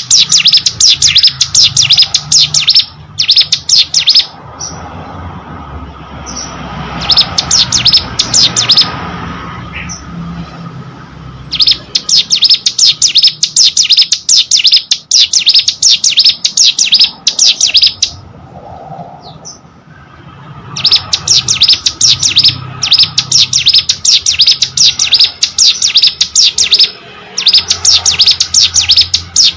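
Ciblek gunung, a small prinia, singing hard: long runs of rapid, sharp, high-pitched notes lasting several seconds each, broken by a few short pauses.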